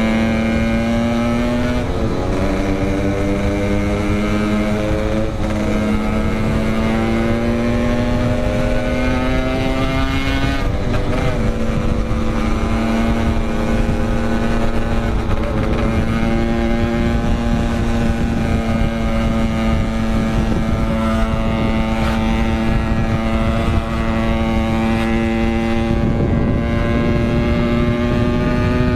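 Yamaha RX-King's 135cc two-stroke single-cylinder engine running at steady high revs while riding, its pitch held nearly level, with brief dips about two seconds and ten seconds in.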